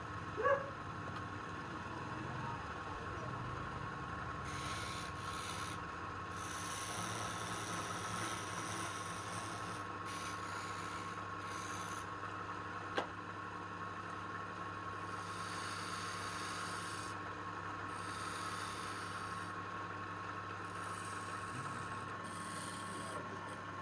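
A woodworking power tool runs with a steady hum, and in stretches wood rasps and scrapes against it as it is worked. A single sharp click comes about 13 seconds in.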